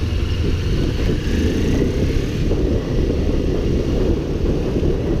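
Motorcycle ridden at road speed, its engine and the passing air heard as a steady low rumble.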